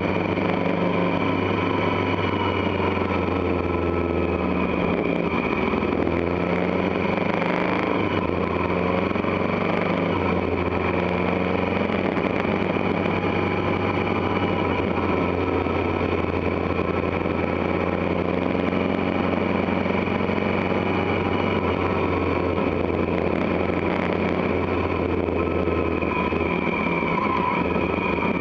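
Motorcycle engine running under way at a steady cruising speed of about 60 km/h, with a steady rush of wind and road noise. The engine note shifts a few seconds in and again near the end.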